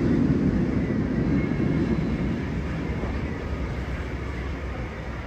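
Launched roller coaster train on an empty test run, rumbling along its track; loudest at first, then fading over the next few seconds as it moves away.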